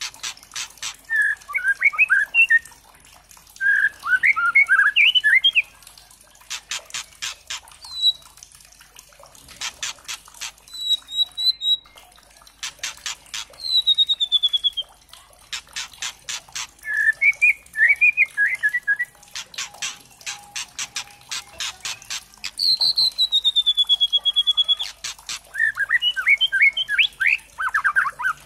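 A young white-rumped shama (murai trotol) calling: runs of rapid rattling ticks alternate with short warbled phrases and clear whistled notes that slide downward.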